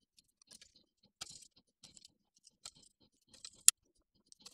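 Scattered small clicks and scrapes of a hex screwdriver and screws being worked into a carbon-fibre drone frame. A single sharp click about three-quarters of the way through is the loudest.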